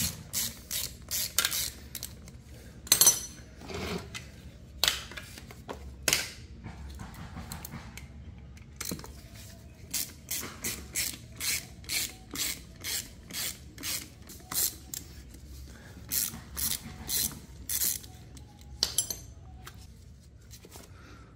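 Socket ratchet clicking in quick runs as it backs out the long through-bolts from the end cap of a starter motor, with a louder knock about three seconds in.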